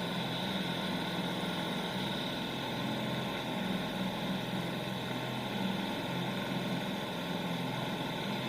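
Nissan 3.5 hp two-stroke outboard motor running steadily.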